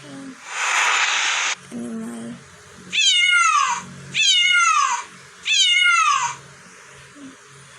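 Cat meow sound effect played three times, about a second apart, each a single meow falling in pitch. Near the start, a second-long burst of hissing noise.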